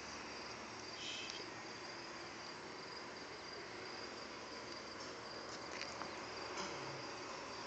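Faint, steady, high-pitched chirring of insects. A few soft ticks and rustles come about a second in and again around six seconds in, as pinstripe tape is pulled off its roll and pressed onto the car's hood.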